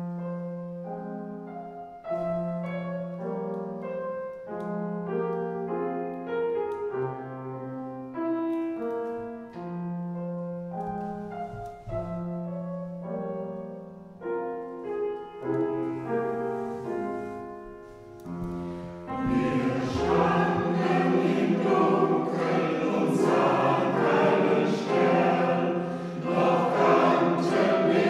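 Church choir music with accompaniment. It opens with slow, sustained chords, then about 19 seconds in the sound turns fuller and louder as the choir sings.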